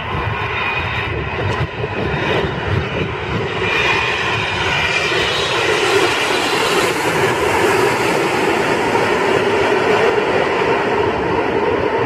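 Twin-engine widebody jet airliner on final approach, its jet engines running with a dense rumble and whine. It grows louder as the plane passes low overhead about halfway through.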